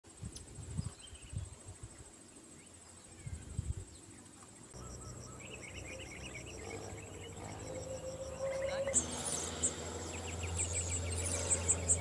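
Forest ambience: a steady high-pitched insect drone, with a few low knocks in the first four seconds. From about five seconds in a low rumble joins and small birds chirp, more busily near the end.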